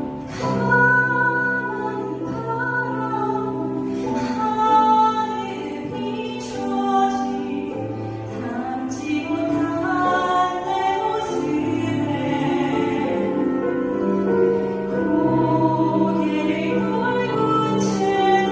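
A woman singing a Korean Catholic hymn into a handheld microphone over instrumental accompaniment, holding long notes.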